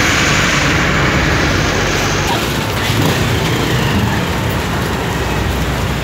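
Engines running steadily with a low rumble, under crowd chatter, with a loud rushing hiss over the first two seconds or so.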